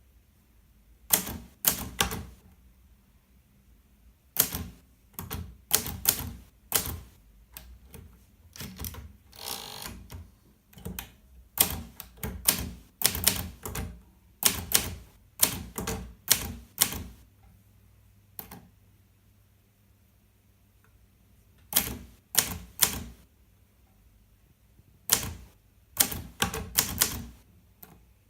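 Hermes 3000 manual portable typewriter being typed on: sharp key strikes come in quick runs, separated by pauses of a second or more.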